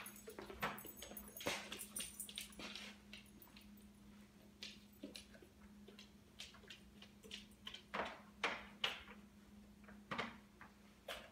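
Irregular light clicks and taps of dogs moving about on a hard floor, claws on the boards, thickest in the first few seconds and again near the end. A steady low hum runs underneath.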